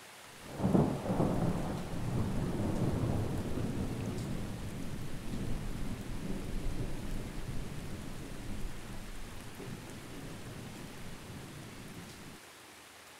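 Thunder: a sudden clap about a second in, then a long rolling rumble that slowly fades and cuts off suddenly near the end.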